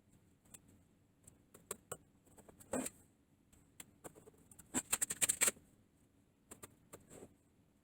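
Light taps and clicks of a straight edge and pencil being set against a wooden door edge while marking hinge positions, with a quick run of taps about five seconds in.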